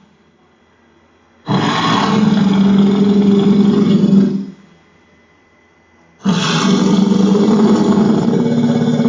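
Kaiju monster roar sound effect: two long, rough roars. The first starts about a second and a half in and lasts about three seconds; the second starts about six seconds in and is still going at the end.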